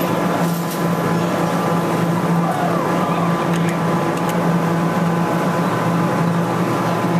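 Steady electric hum and whir of a Sega UFO Catcher claw crane as its claw closes on a plush toy and lifts.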